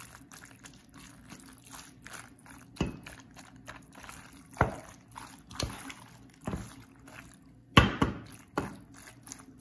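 A spatula stirring cooked penne and minced-meat sauce in a stainless steel pot: wet squelching of the pasta, with irregular sharp knocks of the spatula against the pot, the loudest about eight seconds in.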